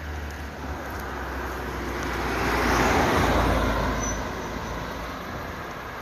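A car passing by on an asphalt road, its engine and tyre noise swelling to a peak about halfway through and then fading as it drives away.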